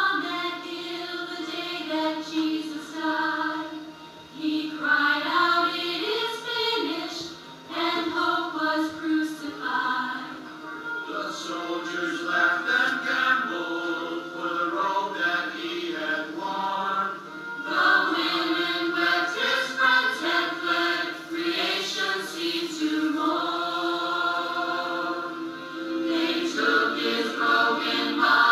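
A mixed church choir of men's and women's voices singing, with brief dips between phrases, played back through a television's speaker, which leaves little low end.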